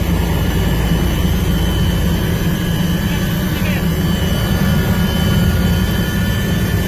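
Steady, loud engine drone with a constant low rumble. Faint voices are heard over it now and then.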